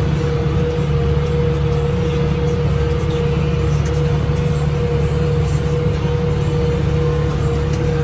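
Tractor engine running steadily, heard from inside the cab: a low drone with a constant whine over it.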